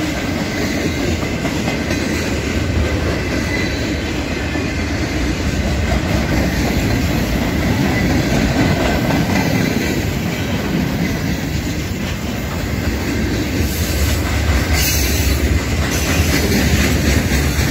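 A mixed freight train's cars rolling past at close range: a steady, loud rumble and clatter of steel wheels on the rails.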